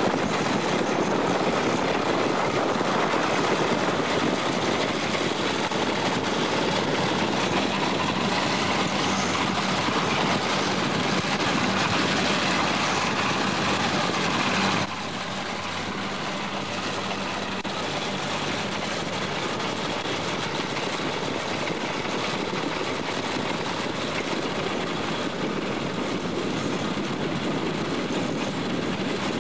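BMP-1 tracked infantry fighting vehicle driving off-road: its V6 diesel engine and tracks make a steady, dense, noisy sound. The whole sound drops suddenly to a lower level about halfway through.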